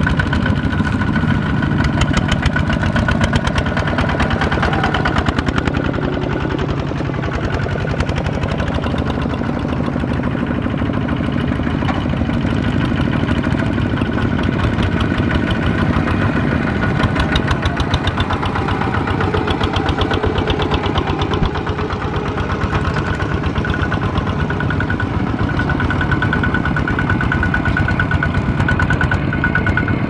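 Single-cylinder diesel engine of a two-wheel walking tractor (power tiller) chugging steadily as it hauls a loaded rice trailer through mud, with a rapid, even firing beat.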